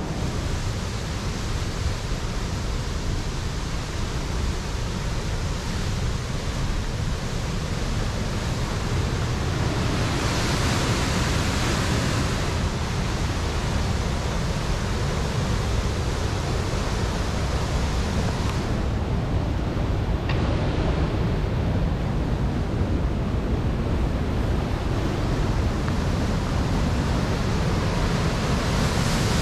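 Waterfall on the Amnicon River rushing steadily, the high, muddy water pouring over rock ledges, growing a little louder about a third of the way in.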